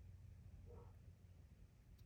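Near silence: low room hum, with one faint, brief sound less than a second in.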